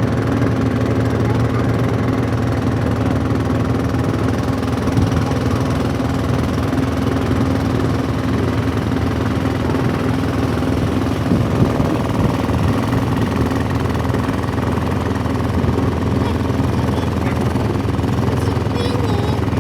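Fishing boat's engine running steadily at a constant speed, a loud, rapid knocking chug.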